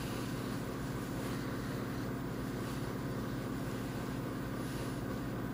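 Steady low hum over a soft even hiss, unchanging throughout: room tone with a constant electrical or appliance hum.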